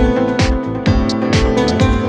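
Background music with a steady beat, about two beats a second, over held pitched notes.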